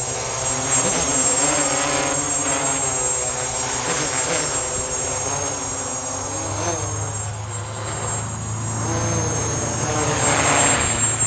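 Small electric quadcopter with Robbe Roxxy brushless motors flying, its propeller buzz wavering up and down in pitch as the throttle changes. It grows louder near the end as the quadcopter passes close.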